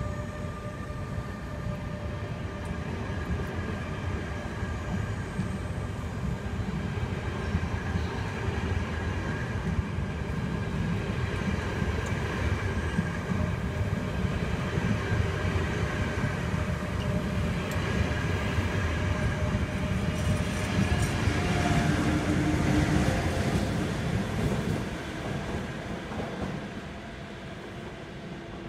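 Dutch NS intercity train's carriages rolling along the platform: a steady rumble of wheels on the rails with a few faint steady whining tones, growing louder over some twenty seconds, then dropping away near the end.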